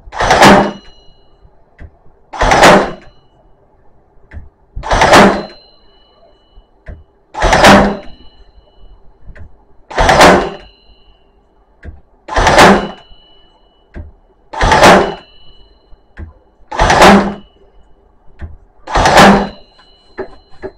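Ozito cordless brad nailer firing into a door jamb, one shot about every two and a half seconds, nine in all. Each shot is a short, loud mechanical burst with a brief high metallic ring after it.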